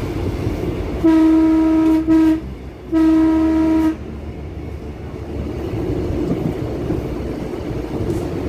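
Minangkabau Express train's horn sounding three blasts: a long one, a short one right after it, then another long one about a second later, over the steady rumble of the moving train.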